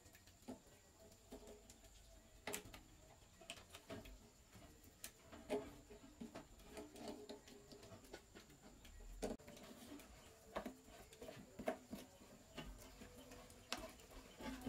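Plastic sink drain fittings and a corrugated drain hose being handled and pushed together, giving scattered small clicks, knocks and plastic creaks.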